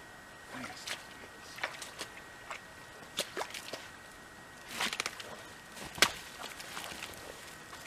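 Footsteps crunching and shuffling through snow and brush in irregular steps, with one sharp knock about six seconds in.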